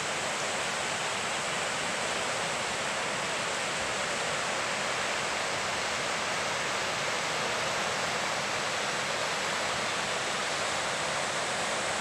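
Fast mountain river rushing over rocks and shallows: a steady, even rush of water.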